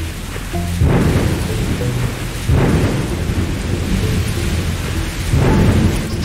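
Thunderstorm: steady heavy rain with three loud claps of thunder, about a second in, at two and a half seconds, and near the end.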